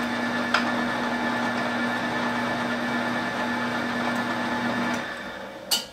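Drill press running steadily with a 1 3/8 inch Forstner bit spinning, a constant hum under the motor noise. It shuts off about five seconds in and winds down, with a short click near the end.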